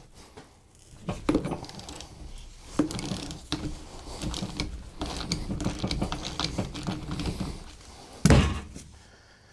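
Socket ratchet clicking in a long irregular run as it backs off the pinion nut on a power steering rack-and-pinion. One loud thunk comes about eight seconds in.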